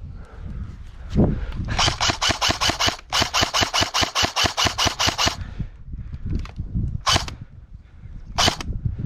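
Airsoft gun firing on full auto: two rapid bursts of about six to seven shots a second with a short break between, then two single shots a second and a half apart.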